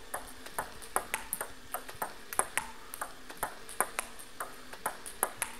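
Celluloid-type table tennis balls clicking sharply off the table and bat in quick, uneven succession, about three to four hits a second, during forehand push practice fed by a ball machine.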